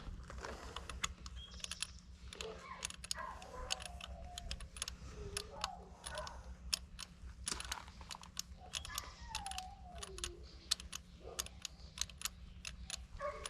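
Many small, irregular metallic clicks and rattles as a spark plug and its socket are worked loose and unscrewed from the cylinder head of a Yamaha 9.9 high-thrust four-stroke outboard.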